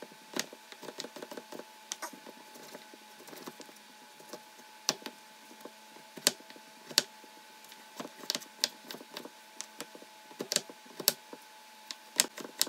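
Kitchen knife dicing raw potatoes on a wooden cutting board: irregular sharp knocks of the blade striking the board, several of them clearly louder than the rest.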